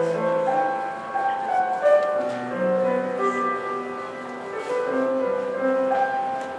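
Slow live music led by piano, with a melody moving in long held notes over lower sustained notes.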